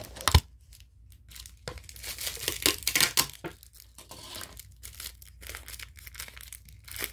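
A clear plastic packet of crispy seaweed snack being crinkled and torn open, in an irregular run of crackles that is loudest two to three and a half seconds in. A single sharp knock comes just after the start.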